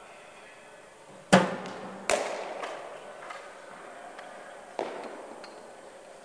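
Two sharp cracks of a cricket ball striking, less than a second apart, the first the loudest, each ringing on in a reverberant indoor hall, then a fainter knock a few seconds later.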